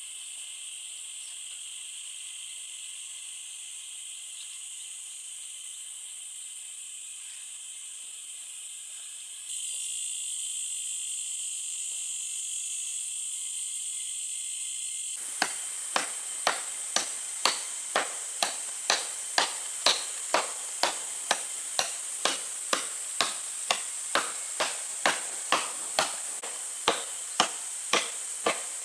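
Insects shrilling steadily in the forest; about halfway through, rhythmic chopping begins, a blade striking wood about twice a second, and keeps on over the insects.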